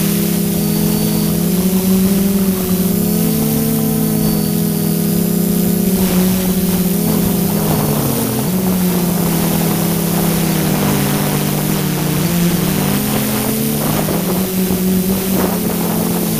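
DJI F550 hexacopter's six brushless motors and propellers running, heard close up from on board: several hums near the same pitch that drift up and down against each other as the motors change speed, over a steady rush of wind.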